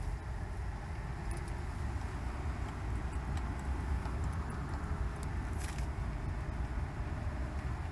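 Car's engine and tyres heard from inside the cabin while driving through a flooded street: a steady low rumble with a few faint clicks.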